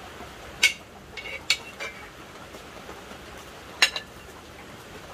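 A metal spoon clinking against a steel pot and plates as curry is dished out: a few sharp clinks with a short ring in the first two seconds and a louder one near four seconds in, over a steady background hiss.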